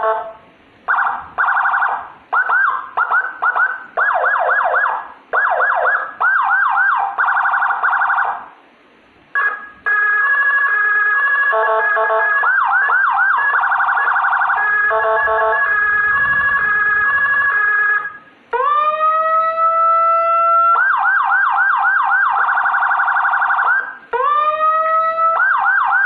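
Electronic emergency-vehicle siren cycling through its tones. It opens with short, loud bursts of rapid up-and-down sweeping separated by gaps, then plays continuously from about ten seconds in. Twice, near 18 s and again near the end, it rises in a wail and then breaks into fast warbling.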